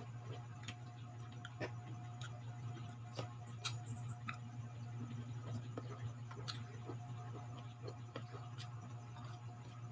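Eating unripe green mango slices with a fork: irregular sharp clicks and crunches of fork and teeth on the crisp fruit, and chewing. A steady low hum runs underneath.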